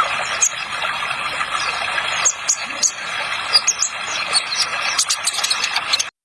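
Kolibri ninja sunbird giving rapid, very high, short chirping notes that come thicker toward the end, over a steady hiss of running water laid under it as a sound effect.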